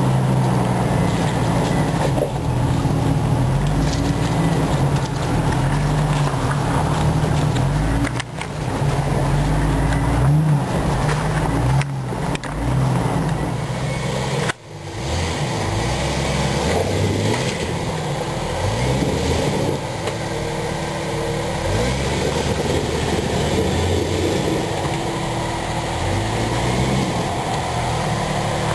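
Engine of a 4x4 driving steadily along a rough dirt trail. After a cut about halfway, the engine of a lifted Jeep Cherokee crawls over rock ledges and ruts, revving up and down again and again.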